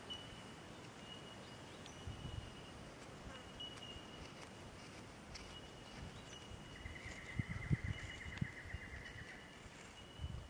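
Outdoor ambience: a thin, steady high-pitched insect tone that comes and goes, joined just past halfway by a pulsing trill lasting a couple of seconds. A few low thumps and rumbles, loudest during the trill.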